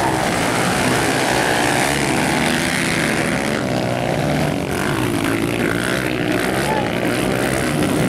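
Dirt bike engines racing, revving up and down with the throttle as the bikes go through the turns.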